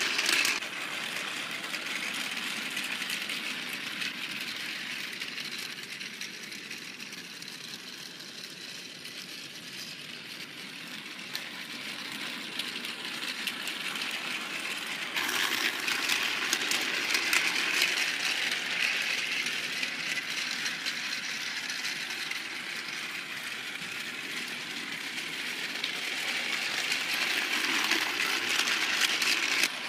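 Battery-powered Trackmaster toy train running on plastic track: a steady motor whir with fine rapid clicking from the wheels and coaches, swelling and fading as it goes around the layout.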